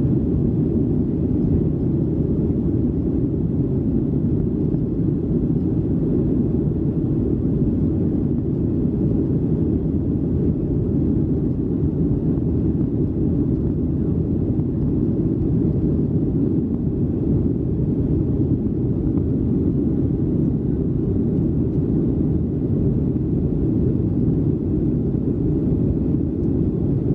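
Cabin noise of a Boeing 737-800 in its climb, heard from a window seat over the wing: the CFM56-7B engines and the rushing air make a steady low rumble that stays even throughout.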